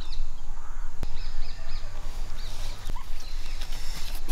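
Short, high animal calls repeated in small groups of two or three, over a low steady rumble, with a couple of single clicks.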